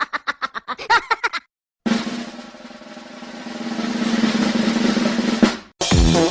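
Snare drum roll sound effect, dipping and then building over about four seconds to a final hit. Before it, a short chattering voice clip ends about a second and a half in, and music with a steady beat starts near the end.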